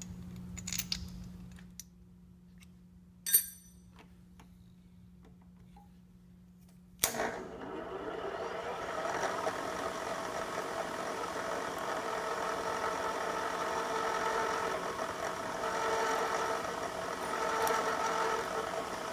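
A couple of sharp metal clinks, then about seven seconds in a milling machine's spindle starts suddenly and runs steadily with a whine of several tones while a small bit cuts a bolt hole through a metal cylinder head gasket.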